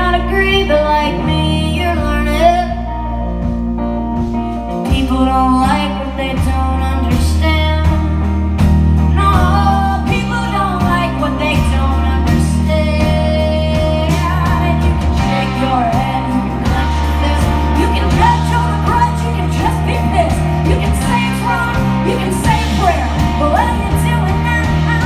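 Live band playing a song: a woman singing lead over electric guitar, electric bass and a drum kit, with the drums coming in about five seconds in.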